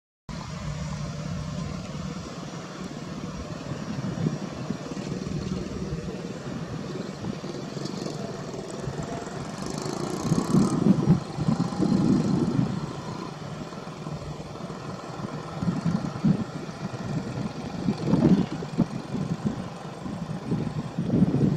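Airbus A320 jet engines running at low taxi power as the airliner rolls past, a steady rumble that swells and fades irregularly.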